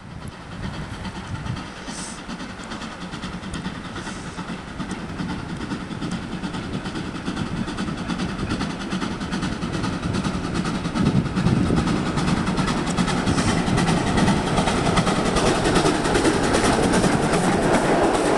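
Steam locomotive hauling a passenger train under steam, its chuffing exhaust and running gear growing steadily louder as it approaches and draws alongside.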